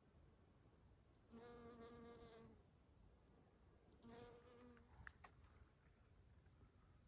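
Honey bees buzzing past twice, each a steady hum lasting about a second. Faint, short, high bird chirps come in between.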